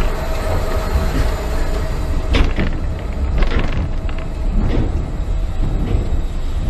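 Intamin roller coaster train running along its steel track: a steady, loud low rumble of wheels on rail. From a couple of seconds in, it is joined by short rushing swishes about once a second.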